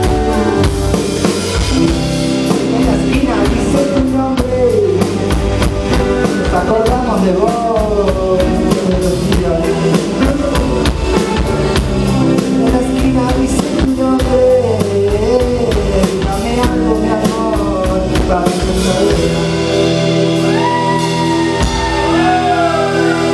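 Live rock band playing an instrumental passage on drum kit, electric guitars, bass and keyboards, with a wavering lead melody over the chords. Near the end the drums drop out, leaving held chords and sliding high notes.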